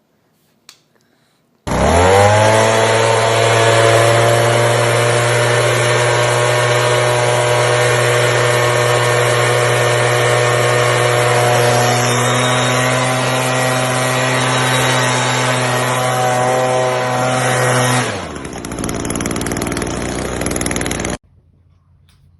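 A motor starts up, its pitch climbing quickly, and runs loudly and steadily for about sixteen seconds. It then winds down, and a noisier whirring carries on for a few seconds before stopping abruptly.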